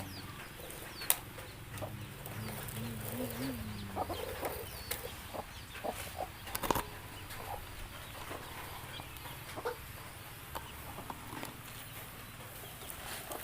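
Chickens clucking, with scattered short calls and clicks over a steady low engine hum.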